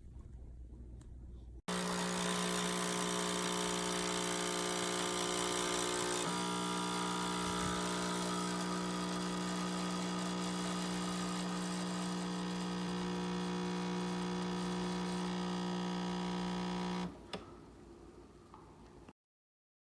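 Nespresso Creatista Plus coffee machine running with a steady, pitched electric hum and some hiss, which shifts slightly about 6 s in. After about fifteen seconds it stops, leaving a quieter sound for a couple of seconds.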